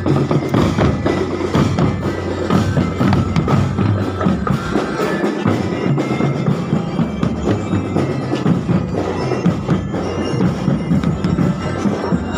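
Parade music played on drums and percussion: a steady, dense beat with short high ringing notes over it.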